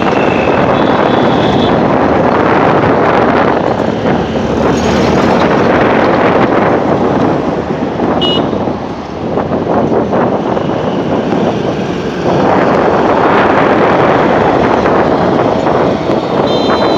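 Wind rushing over the microphone and road traffic noise while riding an electric scooter through city traffic, dipping briefly about halfway. Short high-pitched horn beeps sound near the start, once around the middle, and near the end.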